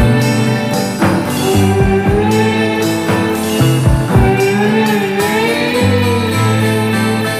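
Background music led by guitar, with a lead line that bends up and down in pitch.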